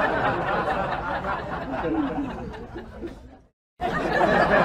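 A jumble of voices chattering and chuckling, fading down and cutting off for a moment about three and a half seconds in, then starting again.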